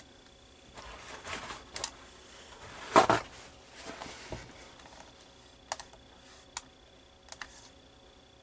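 Hands pressing and rubbing on the clear acrylic lid of a hinged stamping platform: a few short rustling scrapes, a louder one about three seconds in, then scattered light plastic clicks and taps.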